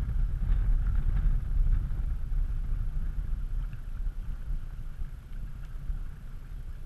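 Low, gusty rumble of wind buffeting the action camera's microphone, with water lapping along the aluminum boat hull; it eases off about halfway through.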